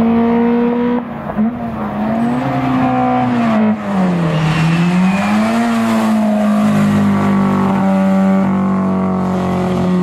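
Historic competition car's engine driven hard uphill as it approaches and passes. The engine pitch drops at a gear change about a second in, swings down and up again in the middle, then holds steady at high revs near the end.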